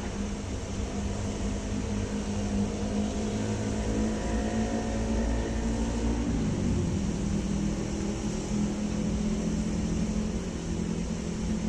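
A steady, low mechanical drone like a running motor or engine, with a brief dip in pitch about six seconds in.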